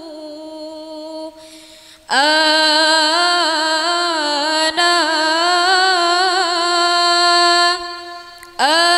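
A young woman's voice chanting a Qur'anic closing prayer in melodic tilawah style. One long held phrase tails off, there is a breath, then a long ornamented phrase of about six seconds, and a new phrase begins near the end.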